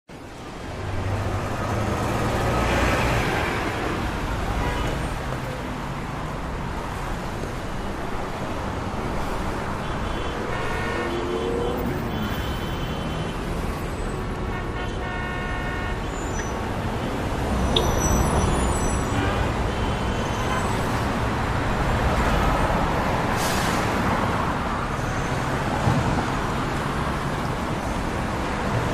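City street traffic: a steady wash of passing cars and other vehicles, engines running and tyres on the road. A few brief high-pitched tones stand out between about 10 and 20 seconds in.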